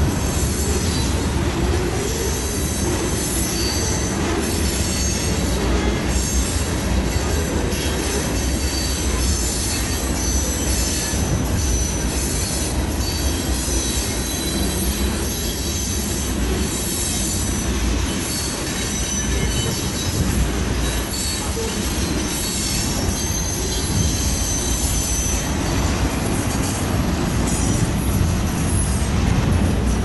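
Freight cars of a long manifest train rolling past continuously, wheels squealing in thin high tones over the steady rumble, with wind buffeting the microphone. Heard through a phone recording from inside a parked car.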